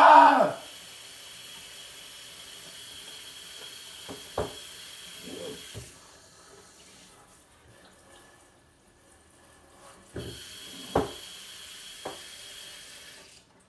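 Water running from a tap in a steady hiss for about six seconds, stopping, then running again for about three seconds near the end. A few sharp knocks fall in between, and a brief voice sounds at the very start.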